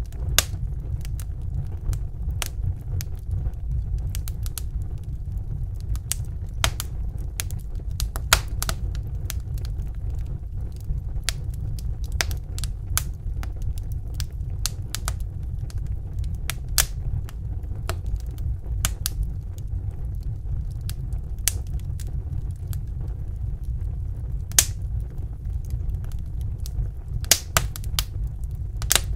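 Wood fire burning in a fireplace: irregular sharp crackles and pops over a steady low rumble, with a few louder snaps, several of them near the end.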